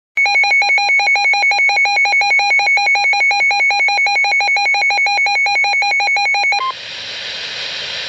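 NOAA weather alert radio sounding its built-in alert alarm, a loud, rapid electronic beeping warble that signals an incoming Special Marine Warning. It cuts off about six and a half seconds in, and a brief steady tone gives way to the hiss of the weather radio broadcast.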